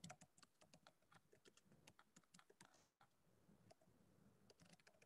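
Faint typing on a computer keyboard: quick, irregular key clicks, thinning out after about three seconds, with a few more keystrokes near the end.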